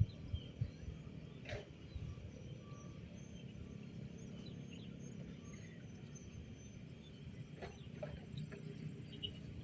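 Scattered short bird chirps and a few brief sharp calls over a low steady rumble.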